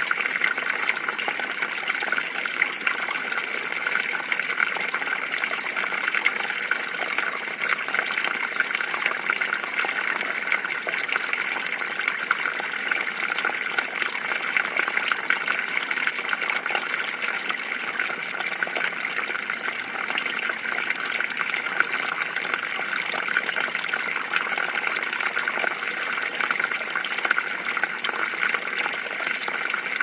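Small stream's water running steadily: a continuous bright rush and hiss with little low rumble.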